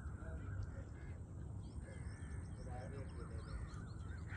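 Crows cawing several times over a low steady rumble, with a few faint higher bird chirps.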